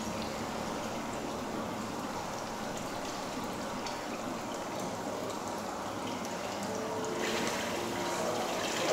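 Hot-spring water pouring steadily from a pipe spout into a bath tub, a continuous splashing trickle. A few faint musical notes come in near the end.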